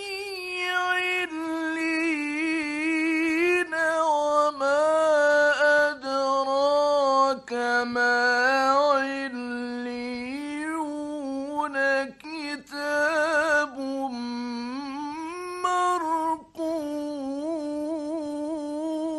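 A solo male voice reciting the Quran in the ornamented mujawwad style. It draws out long melismatic phrases with trembling, rippling turns in pitch, and pauses briefly for breath between them.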